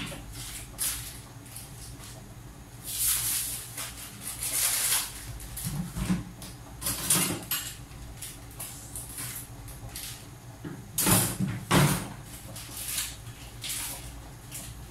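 Irregular knocks and rustles of kitchen items being handled, loudest about three seconds in, around seven seconds and again near eleven to twelve seconds, over a steady low hum.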